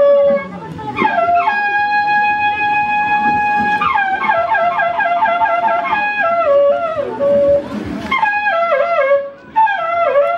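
A bocina, the long Andean horn, playing a melody of short falling phrases, with one long held note and a quick warbling run in the middle.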